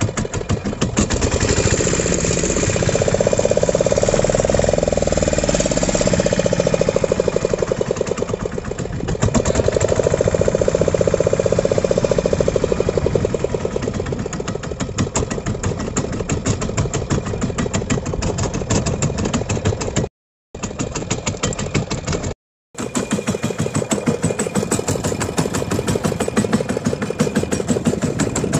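Fishing boat's engine running with a fast, even chugging pulse. It speeds up and eases back twice in the first half, then settles to a steadier run, breaking off briefly twice near the end.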